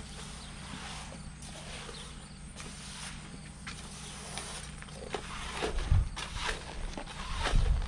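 Rake dragging through loose waxed dirt on a plastic tarp in repeated scraping strokes, with two heavier thumps in the second half, over a steady low hum.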